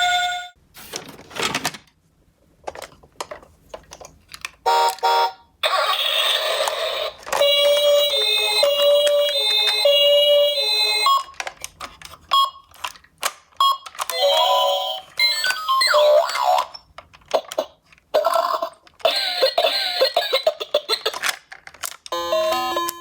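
Electronic siren sounds from toy ambulance minicars, starting and stopping in bursts. Two-tone hi-lo patterns alternate, with one wailing rising-and-falling glide partway through, broken up by many sharp clicks and knocks from the small plastic cars.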